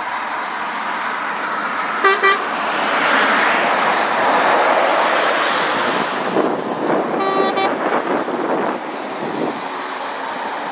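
A lorry passes on the road with the rush of its tyres and engine swelling and fading. A horn sounds two quick toots about two seconds in and another short toot around seven seconds.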